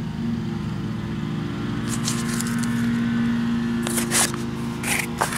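A cardboard box and its packing being handled, with a few short scrapes and rustles about two, four and five seconds in, over the steady hum of an engine running.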